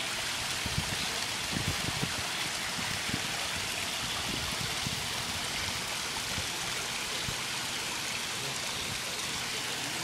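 Running water, a steady even splashing like a small stream or fountain, with a few soft low knocks in the first few seconds.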